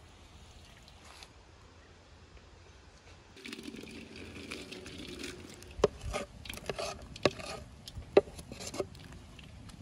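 Chopped onion dropped into hot oil in a large aluminium cauldron, starting to sizzle about three seconds in. Several sharp knocks follow as the wooden board is tapped against the pot to shake off the last pieces.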